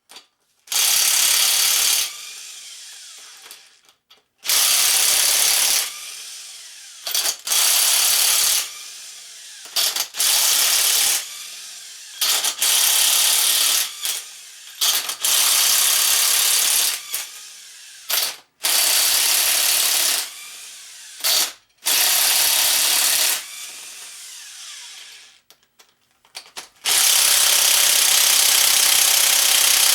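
Impact wrench hammering in about nine bursts of one to two seconds each, each trailing off in a short fading whir, as it loosens an engine's main bearing cap bolts.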